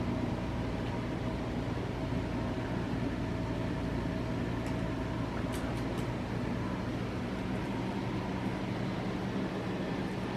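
Steady low hum and hiss of room background noise, such as an air conditioner or fan gives, with a few faint clicks around the middle.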